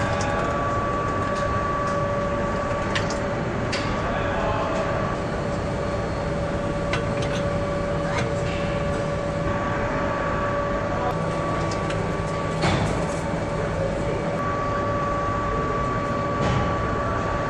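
Factory floor machinery running with a steady hum and two steady tones. Scattered light clicks and knocks come from handling parts at an electric-motor stator assembly station, with one louder knock about three-quarters of the way through.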